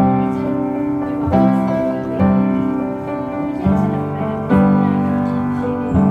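Background song with no singing: piano chords struck about every second or so and left to ring.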